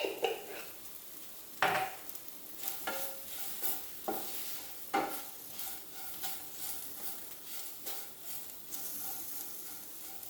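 Okra and spices frying in a pan with a light sizzle, a spatula scraping and knocking against the pan as the masala is stirred in. There are several sharper knocks in the first half.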